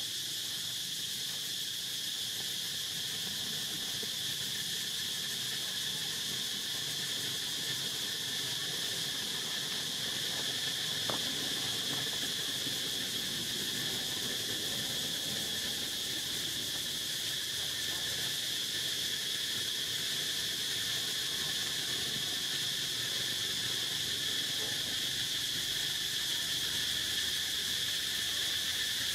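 Steady high-pitched drone of an insect chorus, unbroken and unchanging in level.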